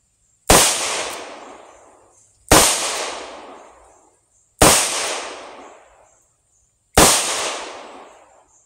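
Four slow, double-action shots from a Taurus 692 revolver firing .38 Special +P 158-grain Blazer aluminum-cased rounds, about two seconds apart. Each is a sharp crack followed by an echo that dies away over a second or so.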